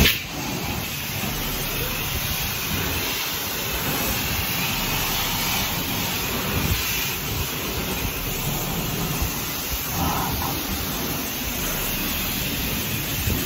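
Self-serve car wash pressure wand spraying a steady, hissing jet of water onto a pickup truck and the wet concrete floor.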